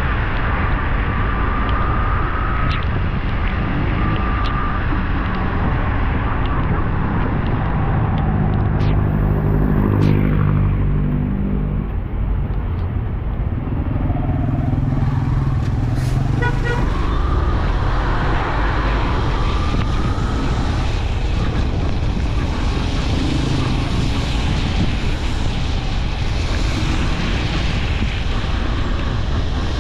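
Riding a motorcycle through traffic: a steady rush of engine, tyre and wind noise, with vehicle horns tooting briefly near the start and again after the halfway point. An engine note grows louder about eight to eleven seconds in.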